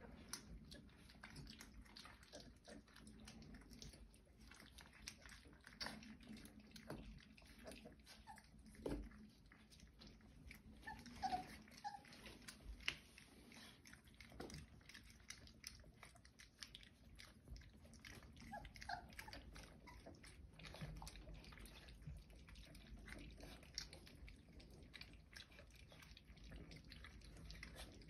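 Four-week-old Old English Sheepdog puppies eating from a metal muffin tin: faint, busy smacking and small clicks of mouths on the tin, with a few short high squeaks in the middle.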